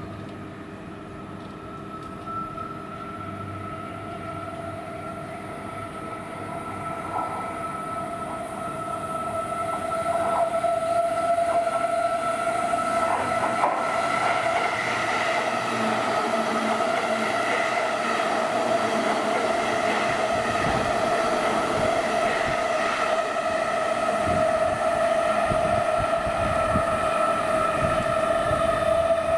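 Electric train moving through a station, with two steady high tones over the running noise, growing louder about ten seconds in.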